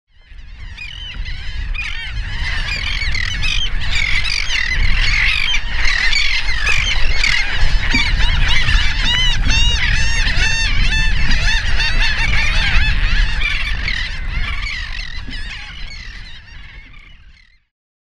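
Dense chorus of many waterbirds calling over one another, short overlapping calls over a low rumble, fading in at the start and fading out near the end.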